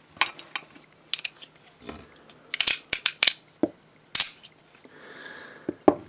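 Irregular clicks and knocks of a rigid aluminium handcuff being turned over and handled, with a faint scrape about five seconds in.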